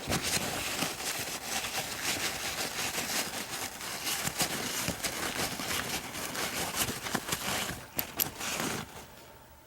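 Continuous rustling and scraping with many small sharp clicks as a greasy padlock core and its pin parts are handled. It fades out in the last second.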